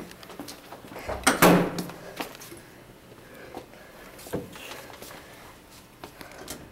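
Heavy school corridor doors being pushed and shut, with one loud bang about a second and a half in and a few lighter knocks of door hardware after it.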